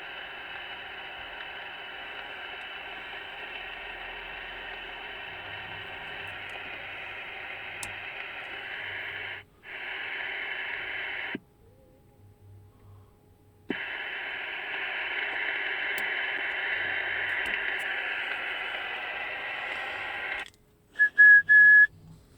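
TriStar 790DX CB radio's speaker hissing with band noise while receiving on upper sideband. The hiss cuts out briefly a few times, and near the end a few loud short bursts and a brief steady whistle come through.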